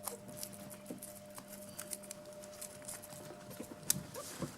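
Guinea pigs chewing and tugging at dill: a steady run of small crisp clicks and crackles, with a faint steady hum behind.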